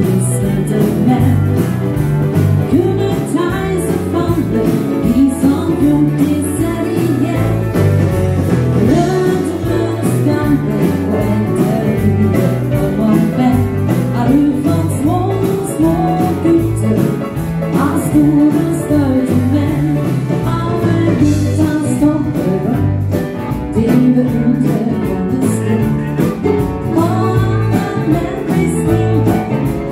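Live danseband playing a dance number on electric guitar, bass guitar, drums and keyboard, with a woman singing.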